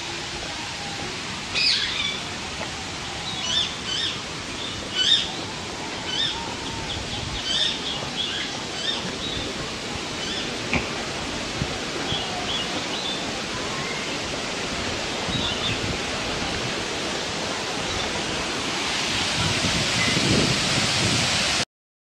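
Birds chirping in many short, repeated high calls over a steady rushing noise; the rush grows louder near the end, then the sound cuts off suddenly.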